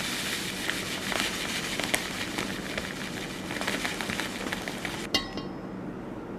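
Food sizzling and crackling in a hot pan. It cuts off suddenly about five seconds in, followed by a short metallic clink that rings briefly.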